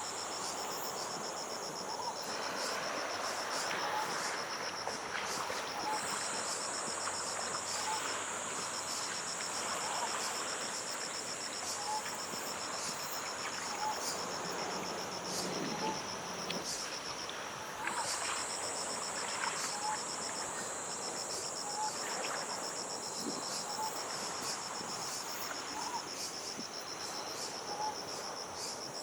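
Insects shrilling in chorus: a steady high buzz over a fast pulsing trill, joined by a short low note repeated about every two seconds, over a soft wash that fits surf.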